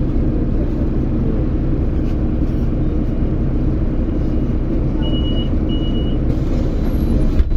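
Steady low hum of a road vehicle's engine running, heard from inside a vehicle. Two short high beeps sound about five seconds in.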